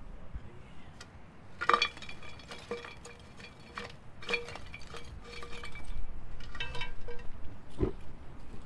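A metal can clinking against a metal pot as it is handled and tipped: a series of sharp metallic clinks, each ringing briefly at the same pitch. A single dull knock comes near the end.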